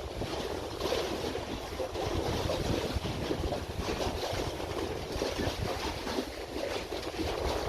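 Wind buffeting the microphone at the seashore, a gusting low rumble over the rush of waves.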